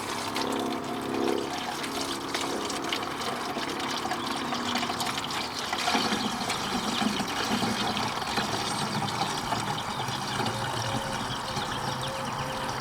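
Windshield washer fluid pouring from a one-gallon jug into a pickup's washer reservoir, a steady pour with shifting filling tones as the reservoir takes the fluid.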